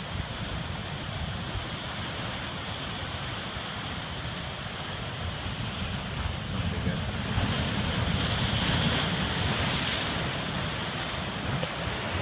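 Pacific surf breaking and washing over a rocky shore, with wind buffeting the microphone. The wash swells louder about seven seconds in, then eases.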